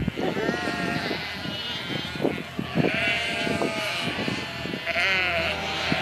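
Several sheep bleating, long held calls that overlap, with short clicks between them.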